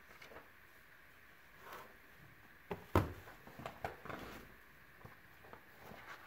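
Quiet room tone with one sharp knock about three seconds in, with a few fainter clicks and short rustles around it.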